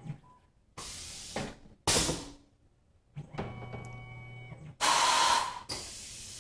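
Machine-shop handling sounds: a small motor whines briefly, and several loud bursts of hissing noise follow, the longest near the end.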